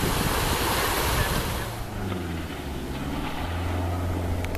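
Shallow river rushing over rocks, a steady rush of water noise. About two seconds in it gives way to a quieter low, steady drone.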